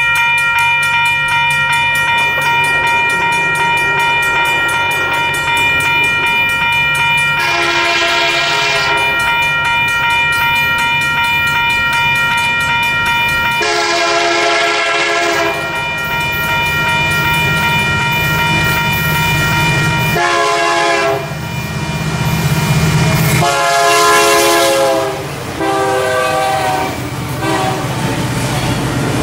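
Union Pacific diesel freight locomotive approaching and passing, sounding its air horn in a series of blasts (two long, a short, then long ones) over the low rumble of its engine, which grows as it nears. Near the end the wheels clatter on the rails as the cars roll by. A steady high ringing tone runs underneath for the first two-thirds and then stops.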